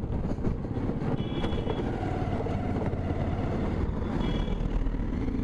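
Motorcycle running at riding speed with steady engine and road rumble, heard from a camera on the bike. Two short high horn toots sound over it, one about a second and a half in and another about four seconds in, as a bus approaches.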